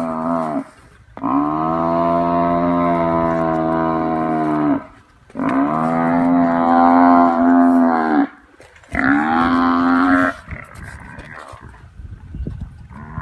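African buffalo bellowing in distress while pinned down by lions: three long, loud bellows, the first two lasting several seconds each and the third shorter, after the tail of an earlier one.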